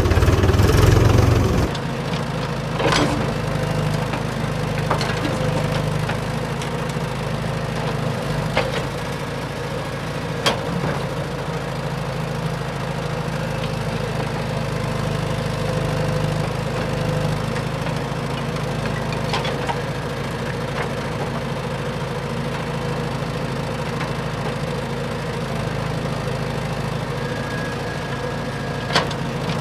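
A steady low motor hum, louder for the first second or two, with a few sharp clicks scattered through it.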